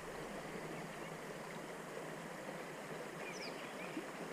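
Steady hiss of creek water flowing, with a few faint high chirps about three seconds in.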